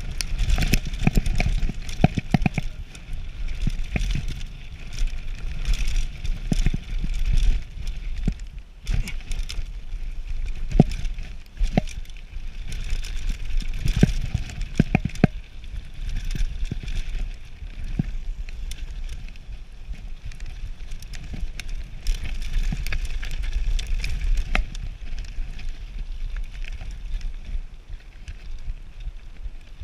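Radon Slide Carbon enduro mountain bike descending a rough dirt trail: tyres rolling over dirt and stones, with repeated sharp knocks and rattles from the bike over bumps. Wind buffets the microphone throughout.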